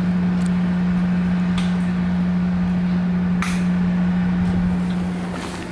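Steady low machine hum at one pitch, with a few light knocks.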